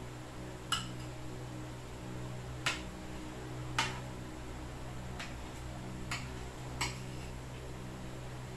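A spoon and fork clicking against plates and plastic food containers while eating, about six short sharp clicks at irregular intervals, over a steady low hum.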